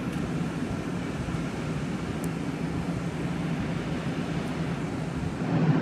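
Steady low rumble and hum of distant city traffic heard from high above the street, growing a little louder near the end.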